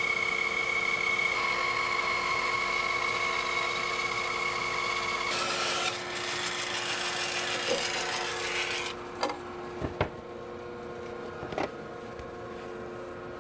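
Large Laguna bandsaw resawing a thick walnut slab into veneer: a steady hum with the noise of the blade cutting through the wood. About nine seconds in the cutting noise stops, leaving the hum and a few light knocks of wood being handled.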